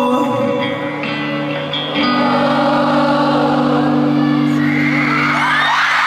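Live band music: a long held low chord under singing, with crowd screams swelling about five seconds in.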